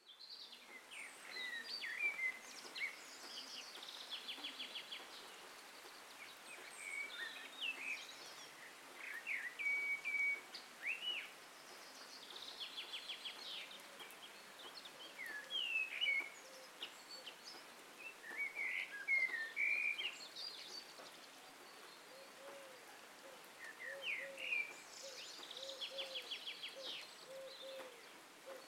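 Songbirds chirping and calling in short whistled phrases and quick rattling trills over a steady background hiss. Near the end a dove coos low and repeatedly underneath.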